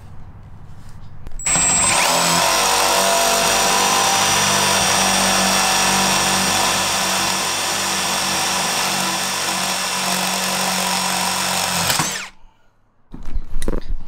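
Cordless drill running steadily under load as a long bit bores into the very hard steel of a school bus wall panel. It starts about a second and a half in and stops abruptly near the end.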